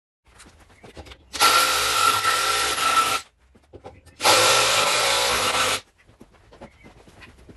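Electric drill boring drawbore peg holes through green oak, run twice for about two seconds and a second and a half, each start and stop sudden, with light handling knocks between.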